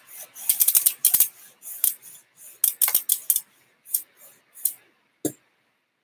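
A hand rubbing a BMX bike's rear rim clean with spit: a quick, uneven run of short, sharp rubbing strokes that stops a little over five seconds in.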